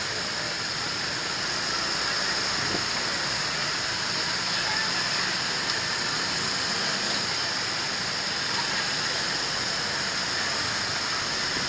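Steady road and traffic noise heard from a scooter riding through busy town traffic: engine and tyre noise under an even rushing hiss, with no breaks.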